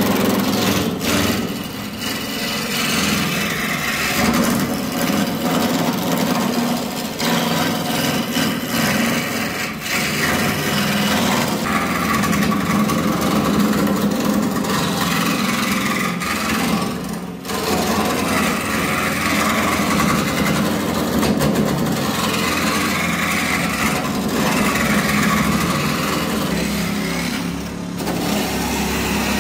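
Wood lathe running while a turning chisel cuts a spinning wooden shaft: a steady motor hum under a continuous scraping of the cutting edge on the wood. The scraping swells and eases as the tool is worked along the shaft, with brief breaks twice in the later half.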